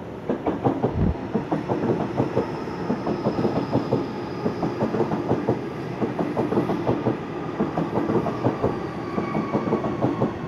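A Waratah double-deck electric train passing close by, its wheels clattering over rail joints in a rapid, uneven rhythm, with a faint high whine that slowly falls in pitch.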